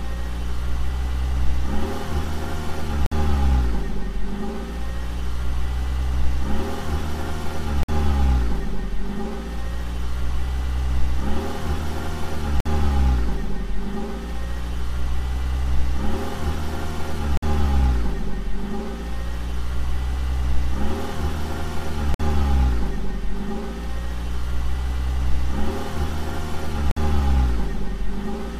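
A car engine sound effect, revving up and down in an even repeating cycle about every one and a half seconds over a steady low rumble.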